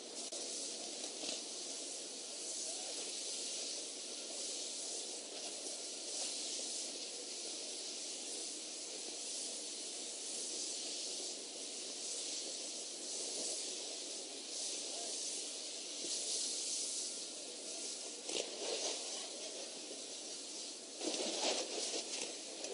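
A large fire burning: a steady rushing hiss, with sharper crackles and pops near the end.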